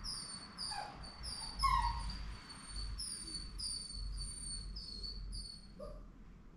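Puppy whining in about ten short, very high-pitched squeals, with a sharper, louder yelp near two seconds in. It is held on its back in the restraint test of a Volhard puppy aptitude test, protesting at being pinned.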